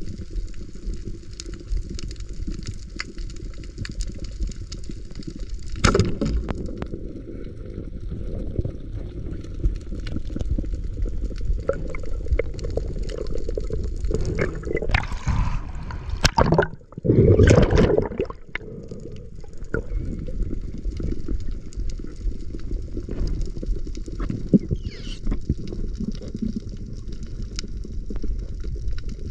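Underwater sound through a speargun-mounted camera: a steady low rush of water with scattered small clicks. A little past the middle comes a sharp snap as the band-powered speargun fires, followed by a loud rush of water and bubbles lasting about two seconds.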